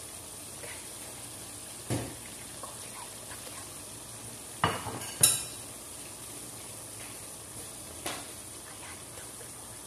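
Chicken pieces and chicken liver sizzling as they sauté in a stainless steel pot, with four sharp clinks of metal against the pot, the loudest about five seconds in.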